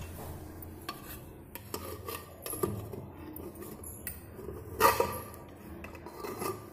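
Metal clinks and knocks of an aluminium pressure cooker and the steel bowl inside it being handled, with one loud clank about five seconds in.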